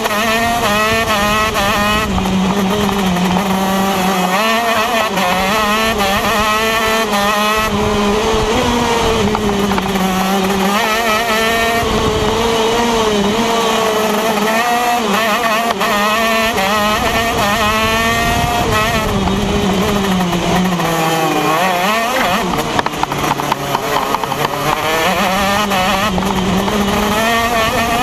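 Two-stroke TM KZ10 shifter kart engine at racing speed, heard from on board, its pitch climbing on each burst of throttle and falling off into the corners, with a deep drop about 21 seconds in before it picks up again.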